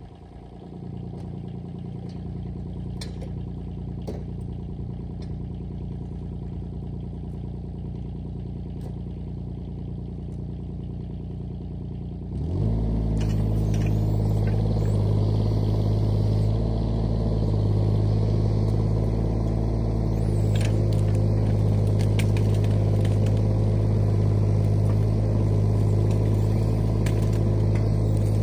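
Diesel engine of a piece of heavy equipment running steadily, then revving up about twelve seconds in to a louder, higher steady speed that it holds; a few light clanks over it.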